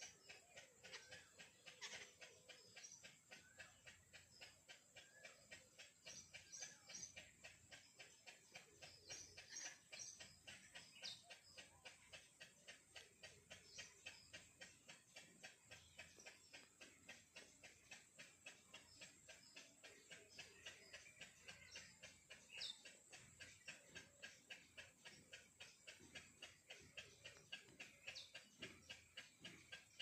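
Near silence with a faint, quick, even ticking and a few faint high chirps.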